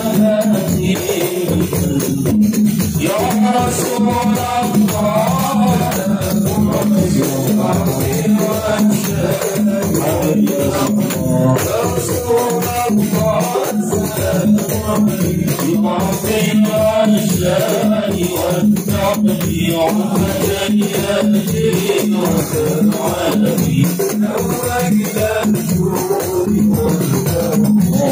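Men's voices singing an Arabic maulid sholawat (devotional praise of the Prophet) together, over a dense rattling hand-percussion accompaniment.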